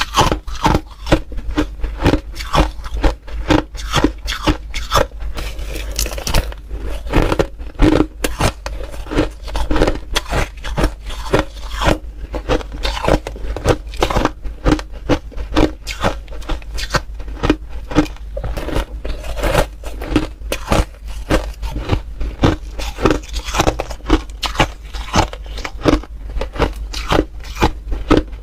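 Close-up chewing of crunchy ice: a continuous run of sharp cracks and crunches, several a second, as the ice is bitten and ground between the teeth.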